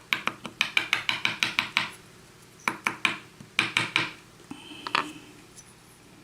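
Runs of quick, light metallic clicks and taps from a disassembled pin-tumbler lock cylinder being tapped and worked to free a spring from its pin chamber. A fast run of about a dozen clicks comes first, then shorter clusters after a pause.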